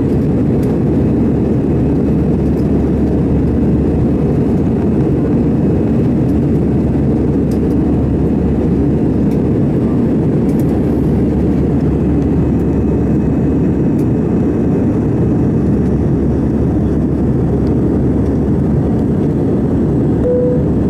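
Steady cabin noise inside an Airbus A319 airliner in flight: a constant low rush of engines and airflow.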